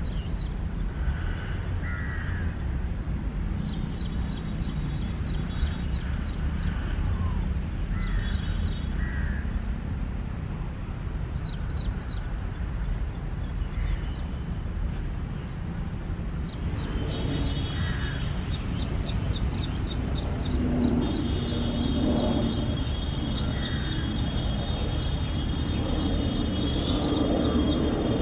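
Birds calling and chirping over a steady low rumble. In the last ten seconds the sound of an approaching electric locomotive hauling a passenger train grows louder, with steady whining tones joining the rumble.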